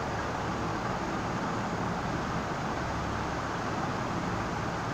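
Steady rushing background noise with a low rumble, even throughout, with no distinct knocks or clicks.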